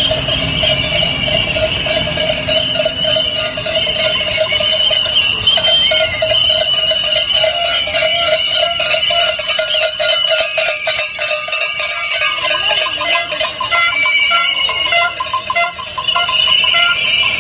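Noisemakers of a marching protest crowd: a loud, steady ringing clatter that goes on without a break, with short higher tones joining near the end.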